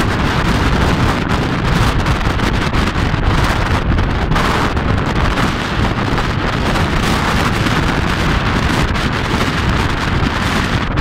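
Force 10 storm wind buffeting the microphone with a loud, steady rumble, over heavy surf breaking on the shore.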